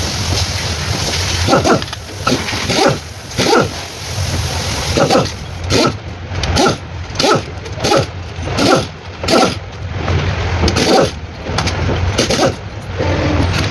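A dog barking repeatedly, about a dozen short barks in uneven runs, over a steady low hum.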